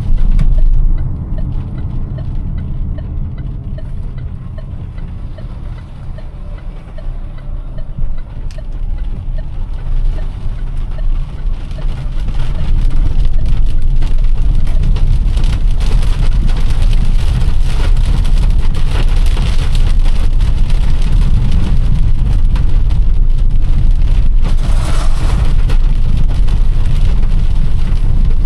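A car driving through heavy rain: steady low engine and road noise with rain falling on the car. The noise grows louder about twelve seconds in and stays up.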